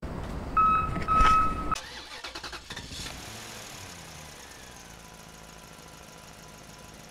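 An engine starting: a loud burst lasting under two seconds with a steady high whine through its middle, a few sputters, then the engine settles into a steady, quieter idle.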